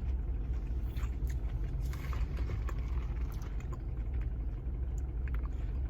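Steady low rumble of a car, heard from inside the cabin, with a few faint small clicks over it.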